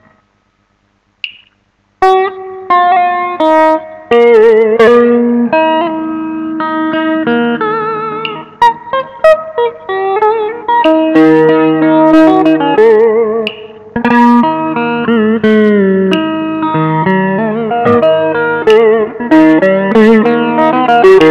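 Electric guitar played through a multi-effects pedal: a lead melody of sustained single notes with vibrato and quick runs, starting about two seconds in after a brief silence.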